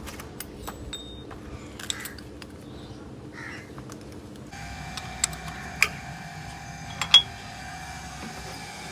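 Scattered sharp metallic clinks and taps, a few louder ones past the halfway mark, over a steady hum; about halfway through a steady higher-pitched tone joins the hum.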